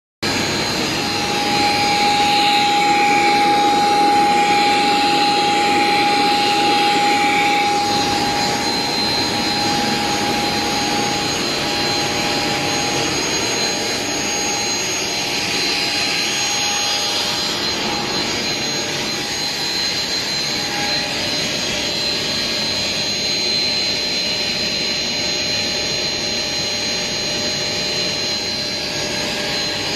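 Industrial powder grinding machines running at speed: a loud steady rush of motor and mill noise with a high whine over it. One steady tone in the mix fades away about two-thirds of the way through.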